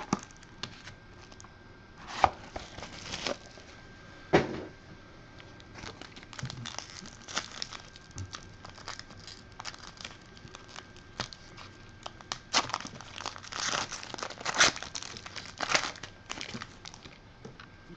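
Plastic wrapping on a trading-card box being torn and crinkled by hand. The crackling is irregular, with sharp snaps about two and four seconds in and a busier spell of crinkling near the end.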